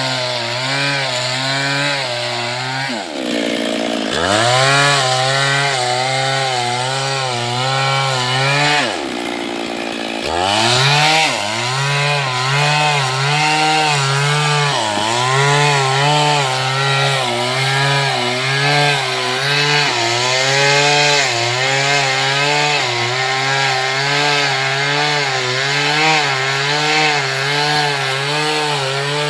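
Stihl MS382 two-stroke chainsaw cutting into teak wood under load. Its pitch wavers as the chain bites, and twice, about three seconds in and about nine seconds in, the engine slows sharply and climbs back up to speed.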